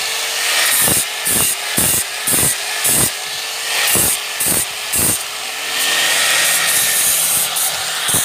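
A hand tool working wood in rhythmic back-and-forth strokes, about two a second, with a steadier stretch of continuous rasping near the end.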